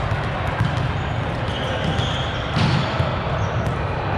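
Busy indoor sports hall din: a steady wash of echoing noise with scattered ball thumps and knocks, the loudest about two and a half to three seconds in, and a few brief high squeaks.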